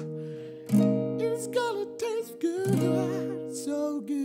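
Acoustic guitar strumming chords, with the loudest strums about a second in and again near three seconds in, each left to ring. A bass guitar plays under it, and a man sings a wordless vocal line with vibrato over the chords.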